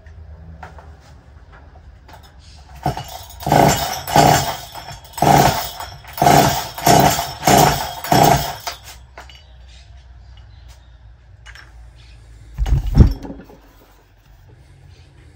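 Two-stroke chainsaw cranked over on its recoil starter cord about eight times in quick succession with the throttle wide open. It does not start: this is a compression test, and the engine turns over against healthy compression of nearly 175 psi. Near the end comes one louder knock.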